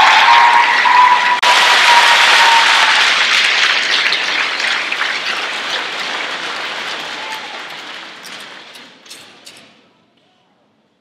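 Audience applauding, with a steady held high tone over it in the first few seconds; the applause dies away gradually to near silence about ten seconds in.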